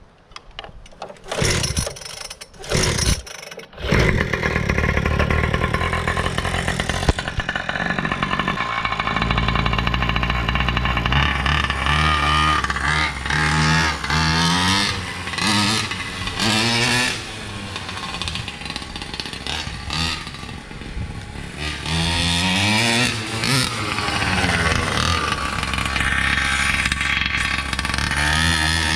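Primal RC Raminator's small two-stroke gas engine running, its pitch rising and falling several times as the throttle is worked. A few sharp knocks come first, before the engine sound begins about four seconds in.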